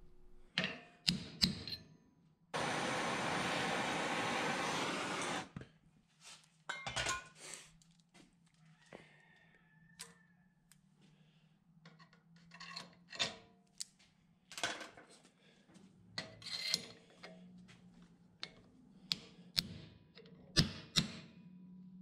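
Hammer blows on a pipe held over a knife tang, driving a steel guard down onto it in a bench vise: scattered sharp knocks with pauses between. A few seconds in, a steady hiss lasts about three seconds and stops abruptly.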